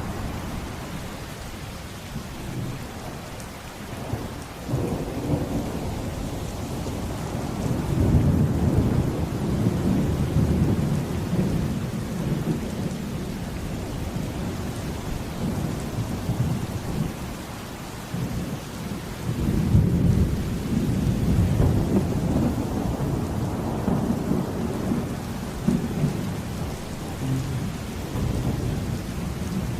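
Heavy rain falling steadily, with rolling thunder that rumbles up about eight seconds in and again around twenty seconds in.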